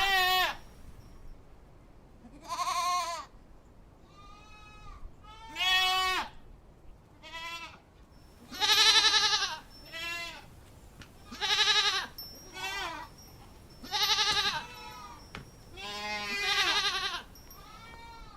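Goats bleating over and over, about a dozen wavering calls each under a second long, coming every one to two seconds, louder calls alternating with quieter ones.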